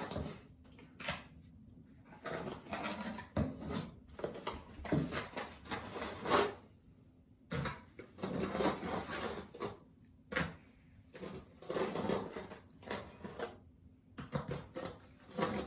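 Trowel scraping and spreading cement over an electric floor-heating mat, in irregular strokes with occasional clicks of the trowel.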